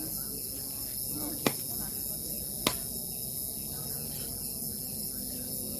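Steady high-pitched chorus of crickets trilling, with two sharp clicks just over a second apart in the middle.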